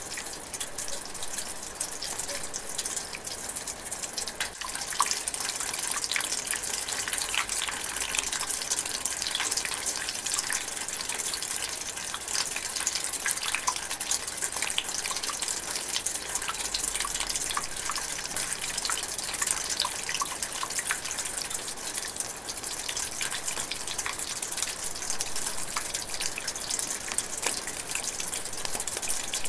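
Light rain drizzling steadily in a forest, a continuous hiss thick with the small ticks of individual drops.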